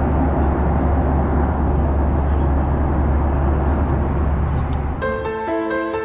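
Steady low rumble of engine and air noise inside an airliner cabin. About five seconds in it cuts to music with piano-like notes.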